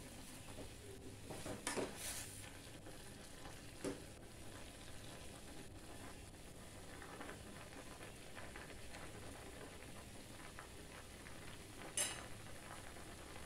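A utensil knocking and scraping against an aluminium saucepan as instant noodles and green vegetables are stirred in it, over a faint steady hiss from the boiling pot. The knocks come in a short cluster early on and once more about four seconds in, with one sharp clack near the end.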